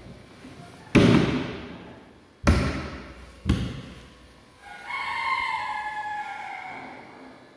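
Three heavy thumps, each ringing briefly as it fades, then a drawn-out squeak that slowly falls in pitch.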